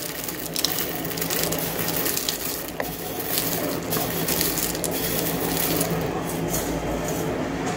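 Dry ingredients being scooped, shaken and packed in measuring cups: gritty crunching with many small light clicks.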